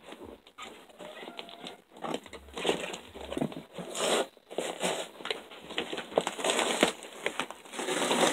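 Rustling and crinkling of a cardboard box and its packing peanuts and wrapping being pulled at and dug through, an irregular run of crackles and scrapes that grows busier about two seconds in.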